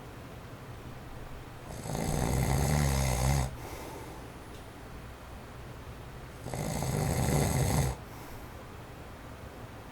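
A man in his forties snoring in his sleep: two loud snores about five seconds apart, each lasting a second or two, over the faint steady whoosh of an electric fan on its low setting.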